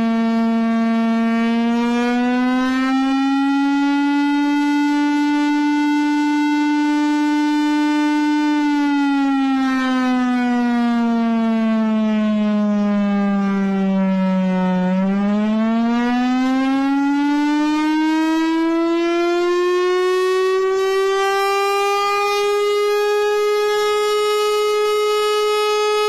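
A siren sounding continuously with one steady wailing tone. Its pitch rises slightly and holds, slides down slowly for about six seconds, then climbs back up to a higher pitch and holds there.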